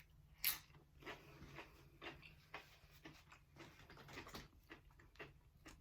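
Faint chewing and mouth noises of a person eating, with one sharper click or smack about half a second in.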